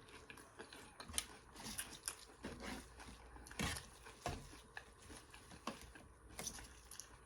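A person chewing food, with soft, irregular wet clicks and mouth smacks and a few louder ones.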